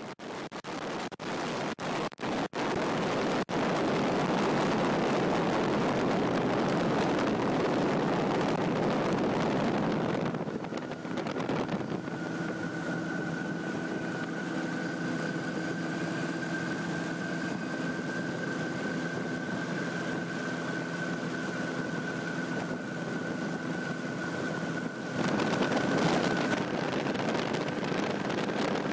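Light aircraft in flight, heard from the cockpit: steady engine drone and wind rushing over the microphone. The sound changes abruptly about ten seconds in and again near the end. From the middle on, a steady high whine sits over the engine.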